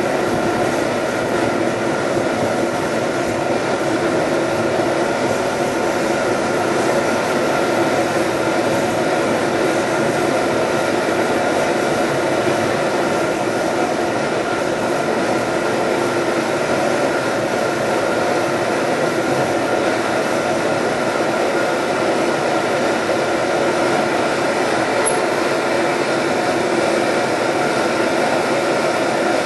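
MSR XGK liquid-fuel camp stove burning steadily inside a home-made ammo-can engine preheater, a constant loud rushing noise with a few fixed tones in it.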